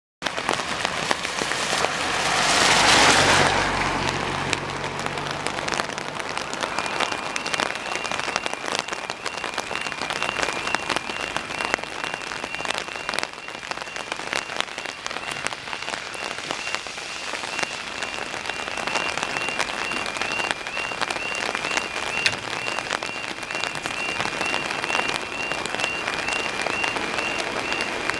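Heavy rain pattering densely on an umbrella. About three seconds in, a vehicle swishes past on the wet road, with a low engine hum.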